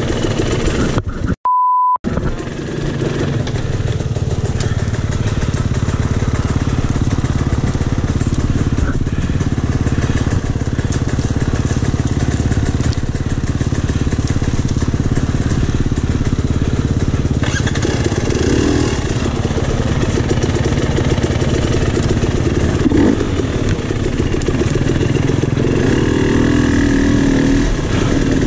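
KTM 300 XC two-stroke dirt bike engine running steadily on the trail. A short single-tone censor bleep cuts over the sound about one and a half seconds in.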